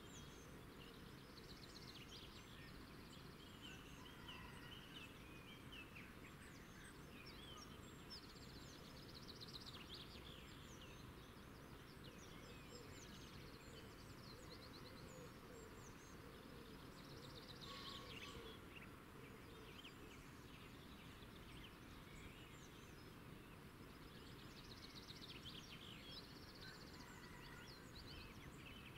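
Faint background noise with small birds chirping and trilling in short high phrases every few seconds.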